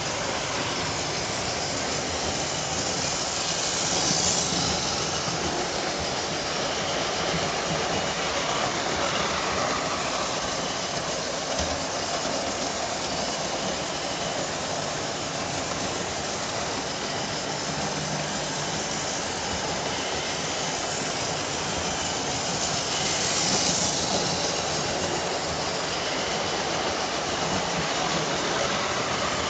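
Hornby OO gauge model trains running on their track: a steady rattling whir of small wheels on the rails and the electric motors, swelling louder twice as a train passes close, about four seconds in and again some twenty seconds later.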